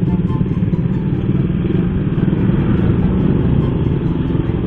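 Single-cylinder four-stroke engine of a Yamaha Jupiter MX 135 underbone motorcycle running steadily at low speed in stop-and-go traffic, with a dense rumble of engines from the surrounding traffic.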